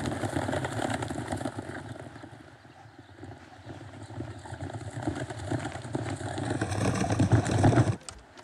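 Several horses galloping, a dense clatter of hooves that fades over the first few seconds, builds again and cuts off sharply near the end.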